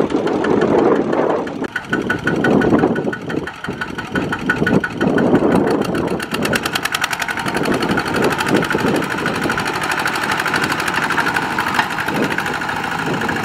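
Single-cylinder diesel engine of a two-wheel walking tractor running with a fast, even chug. The chug is uneven for the first few seconds and settles into a steady beat from about six seconds in.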